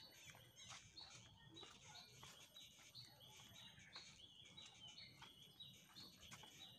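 Faint forest ambience: birds chirping, short high notes repeating several times a second, with faint footsteps on a dirt trail.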